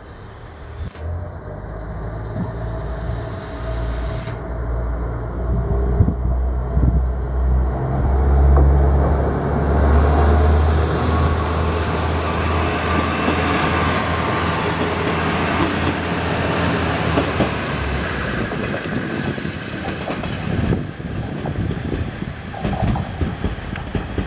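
JR East KiHa 110 series two-car diesel railcar pulling away: its diesel engine drone builds under power, loudest a few seconds in. Then, as the cars pass, steady wheel clatter and a thin high wheel squeal take over while the engine drone dies away.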